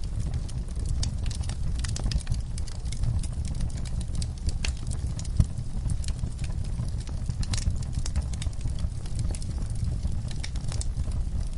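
Campfire burning: a steady low rumble of the flames with irregular crackles and sharp pops from the burning wood, one louder pop about five seconds in.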